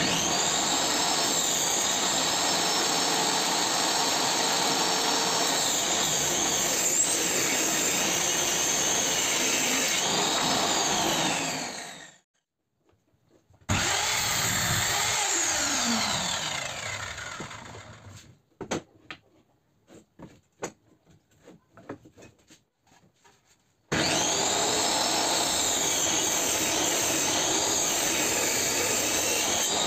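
Table saw running and ripping plywood into strips, its whine dipping and recovering as the blade bites. Partway through, a miter saw crosscuts a strip and spins down with a falling whine, followed by scattered knocks of wood pieces being handled. The table saw then starts ripping again near the end.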